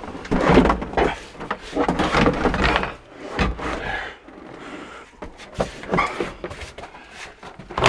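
A padded headliner panel being pushed and worked up into a truck cab's ceiling. There are about three seconds of rubbing and scraping, then scattered knocks and taps, and a sharp knock near the end.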